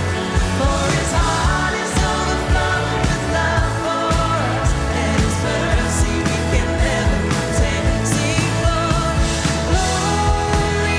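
Live band playing a worship song, with a woman singing the lead melody over a steady beat of bass and drums.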